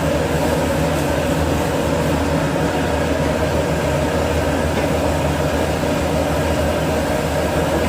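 Steady mechanical roar of a restaurant kitchen cooking jjamppong, the gas wok burner and exhaust hood running without a break, with a low hum underneath.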